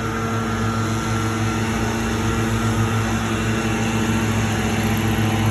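Small gasoline engines of lawn-care equipment running steadily at a constant pitch, with no revving.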